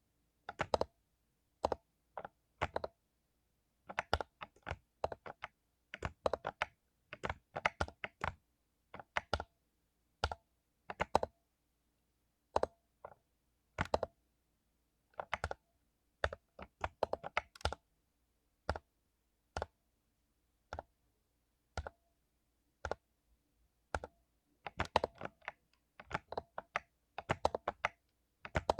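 Mechanical keyboard with lubed Cherry MX Silver linear switches being typed on: crisp keystroke clacks come in irregular runs with short pauses between them.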